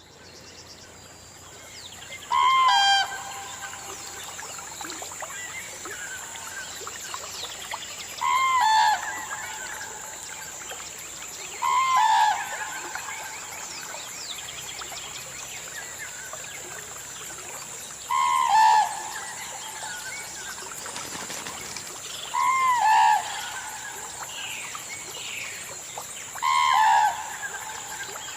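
Common cranes trumpeting: six loud bugling calls, each under a second, a few seconds apart. A steady high insect drone and faint chirping of smaller birds run underneath.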